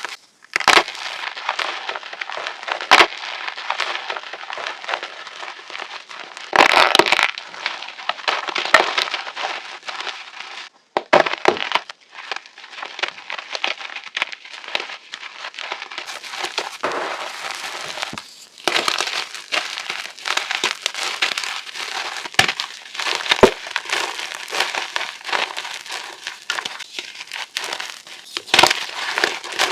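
Reformed gym chalk crunching and crumbling: a dense, gritty crackle full of sharp snaps. It comes in short spliced clips that cut off abruptly several times.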